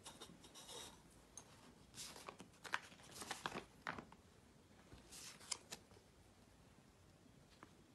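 Paper slips rustling and crinkling as they are handled and laid on a plate, with a few short clicks and taps.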